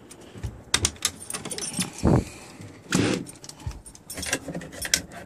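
Handling noise on a fiberglass boat: a hand working a deck-hatch latch and rummaging in the console, giving a string of clicks, knocks and light metallic rattles, with heavier thumps about two and three seconds in.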